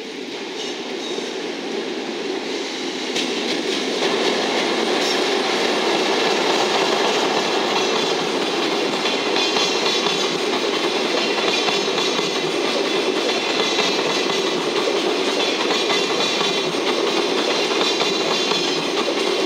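Empty Chiki rail-carrier flat wagons of a freight train rolling past behind an EF65 electric locomotive: a steady noise of steel wheels running on the rails, growing louder over the first few seconds and then holding.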